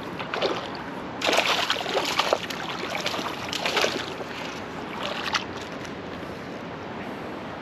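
Water splashing and sloshing in four bursts over the first five seconds or so, the longest about a second in, over a steady hiss of moving water.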